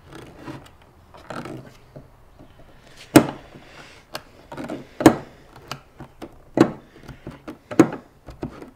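Knipex pliers gripping a finish nail and rocking against a pine board to lever it out: a series of sharp clicks and knocks, the loudest about three and five seconds in.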